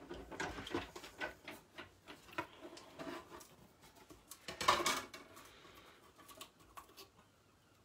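Small clicks, taps and rustles of metal dies, paper and cutting plates being handled on a craft desk, with one louder clatter about five seconds in.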